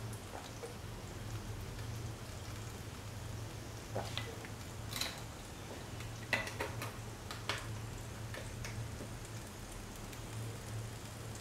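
Cooking oil heating in a pan on the stove, a faint sizzle with scattered crackles and pops, over a steady low hum.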